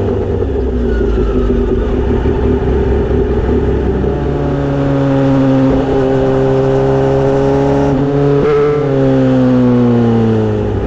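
Motorcycle engine running through a Misty Kintaro short-pipe muffler with a 70 mm L silencer, idling steadily with slight rises and falls in pitch. Near the end the throttle is blipped once and the note sinks back down.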